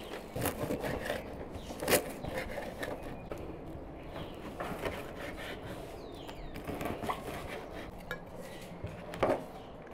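Cutlery and dishes clinking and knocking, with scattered sharp clinks; the loudest comes about two seconds in and another near the end.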